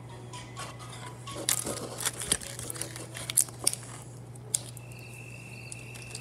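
Hands handling small plastic toys and a crinkly packet: a run of sharp clicks and rustles over a steady low hum, followed by a thin steady high tone for the last second or so.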